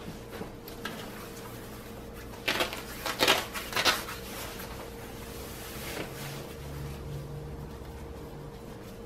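Nylon shell of a puffer jacket rustling as it is handled at the collar and front zip, with a cluster of louder rustles and scrapes about two and a half to four seconds in, over a faint steady hum.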